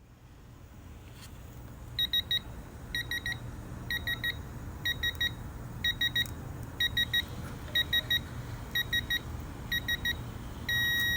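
Electronic torque wrench beeping while wheel lug nuts are tightened: groups of about three short high pips roughly once a second, then a longer steady tone near the end, over a low steady hum.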